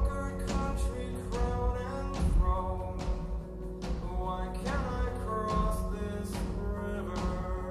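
Background music: a melody over regular drum hits.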